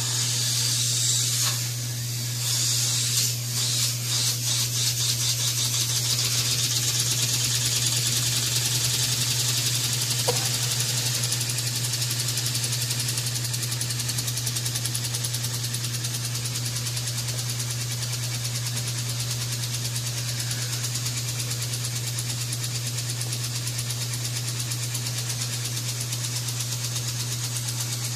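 Small model steam engine running on steam from a mini boiler, the steam hissing and chuffing in quick, even beats as the steam valve is opened. It sets off suddenly and settles into a fast, steady run, over a steady low hum.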